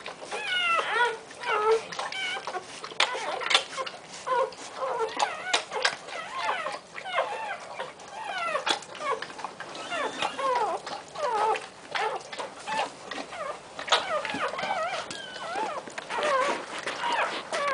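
Newborn English Bull Terrier puppy squeaking and crying over and over in short, high, wavering calls, with small wet clicks from the mother dog licking it.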